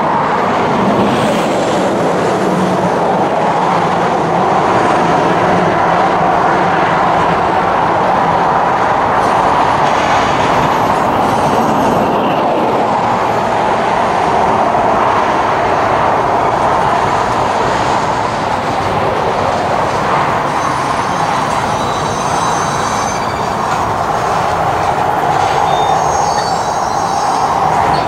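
Freight train's tank cars and covered hoppers rolling past close by, a steady rumble and rattle of steel wheels on rail. Faint high-pitched wheel squeal comes in during the second half.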